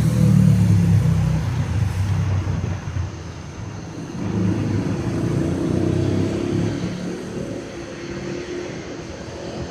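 Low rumbling motor-vehicle engine noise. It is loudest in the first couple of seconds, dips about three seconds in, swells again and then eases off.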